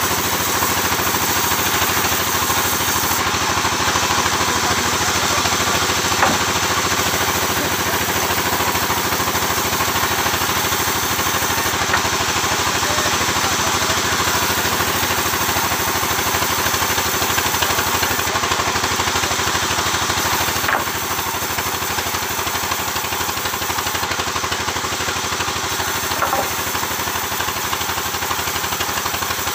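Sawmill engine running steadily, with a few faint knocks. It drops slightly in level about two-thirds of the way through.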